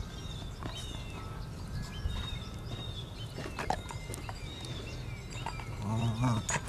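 Dogs at play, a giant schnauzer and a Jack Russell terrier, with a short low growl about six seconds in.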